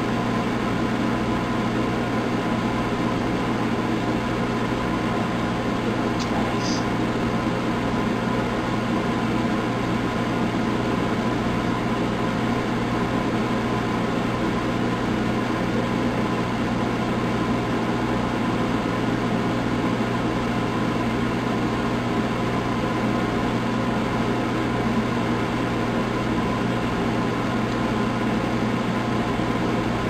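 Microwave oven running with a steady low hum and fan noise, heating a 60-watt light bulb inside. A couple of faint high ticks come about six seconds in.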